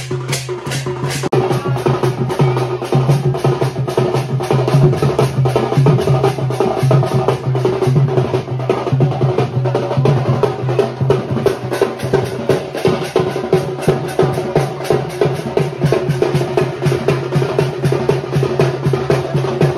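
Folk drum band playing: a barrel drum beaten in a fast, steady rhythm with brass hand cymbals clashing along, over a steady low tone.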